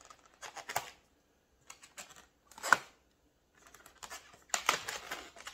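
Hands handling twisted latex balloons: a few short rubbery rubs and squeaks, the loudest one near the middle, with short pauses between.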